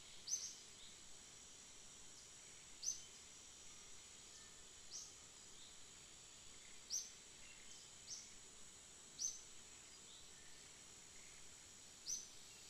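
Tropical forest ambience: a steady high insect drone, with a bird giving a short, sharp, high chirp about seven times at irregular gaps of one to three seconds.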